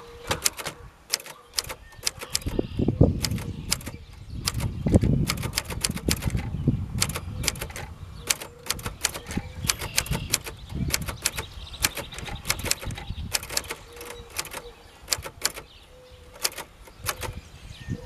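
Keys of a 1967 Dutch-made Royal Quiet Deluxe manual portable typewriter being struck one at a time, giving irregular, crisp typebar clacks several times a second. Low rumbles come in about three and five seconds in.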